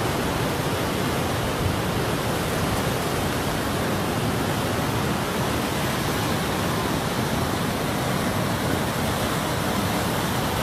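Floodwater of the swollen Cagayan River rushing: a steady, even noise that does not change.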